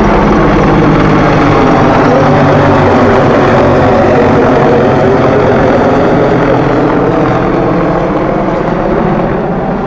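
Mil Mi-26 heavy-lift helicopter passing low overhead: the loud, steady rotor noise of its eight-blade main rotor and twin turboshaft engines, easing off slightly in the last few seconds as it moves away.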